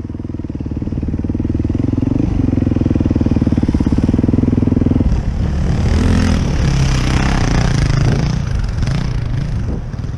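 Dirt bike engine revving hard under load on a steep hill climb, building for about five seconds and then suddenly backing off, followed by a rough rushing noise with the engine running lower.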